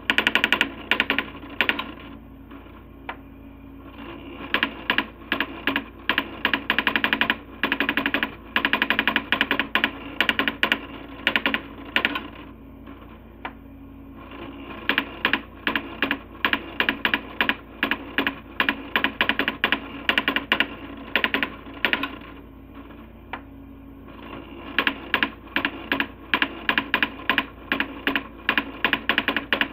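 Coleco Adam SmartWriter daisy wheel printer printing graphics: long runs of rapid, sharp hammer strikes, broken about every ten seconds by short pauses in which only a steady hum remains.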